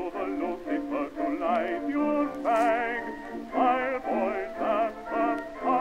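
Outro music: a melody with strong vibrato in phrases, sung or singing-like, thin and without bass.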